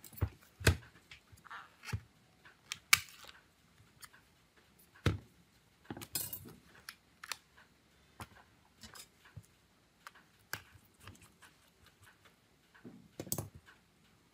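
Gloved hands handling an Acer Iconia B1-723 tablet on a silicone repair mat: irregular clicks and knocks as its back case is turned and pressed, the loudest about three seconds in, with a short scrape around six seconds.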